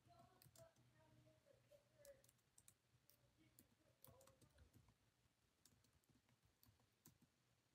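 Near silence, with faint, irregular small clicks scattered through it.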